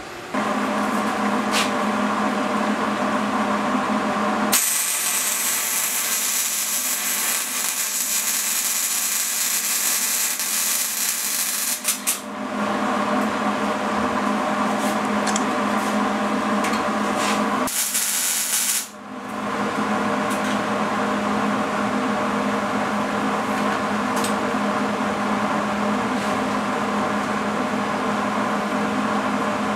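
Arc welding with a Hobart welder: a steady crackling hiss for about eight seconds starting a few seconds in, then a second short burst about two-thirds of the way through. A steady hum with several fixed pitches runs underneath.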